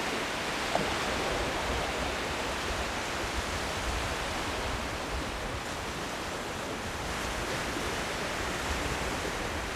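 Steady wash of sea surf breaking on the beach, with wind buffeting the microphone in low rumbles.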